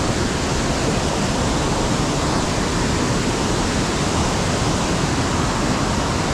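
Small mountain stream and waterfall, water rushing steadily.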